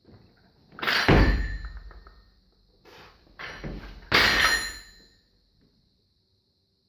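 Two heavy thunks about three seconds apart, each with a short ringing tail: a loaded 70 kg barbell with bumper plates shifting on the floor as the lifter sets up for a snatch.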